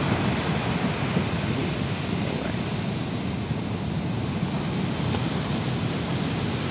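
Ocean surf breaking on the beach: a steady rushing wash of waves.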